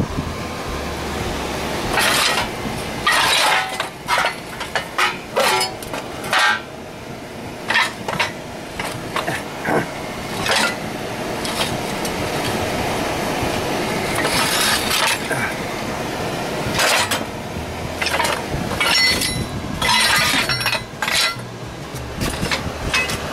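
Pieces of scrap steel (square tubing, angle iron and pipe) clanking and clinking against each other as they are shifted and pulled out of a pile by hand. The knocks come irregularly, a dozen or more of them, and some ring briefly.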